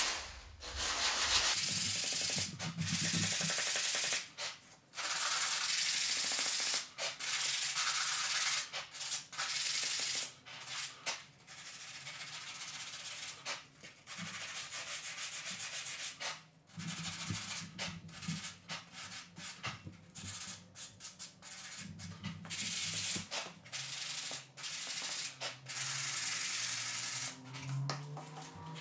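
Flat sanding block rubbed back and forth over a primed wood baseboard corner, taking the excess lightweight wood filler off the joint: a run of uneven scratchy strokes with short pauses between them.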